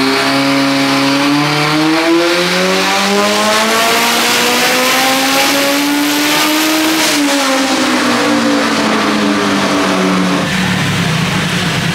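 Nissan GTi-R's turbocharged billet SR20VET 2.0-litre four-cylinder on a dyno pull with boost set for 35 psi: the engine note climbs steadily for about seven seconds, then falls away over the next three as it comes off the pull.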